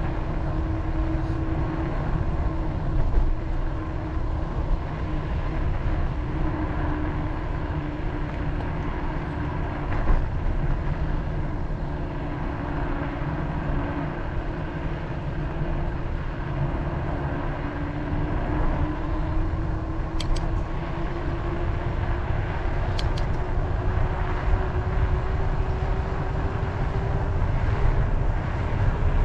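Wind rumbling on the microphone of a camera riding along on a moving bicycle, with a faint steady hum underneath that slowly rises in pitch near the end. Two brief high chirps come past the middle.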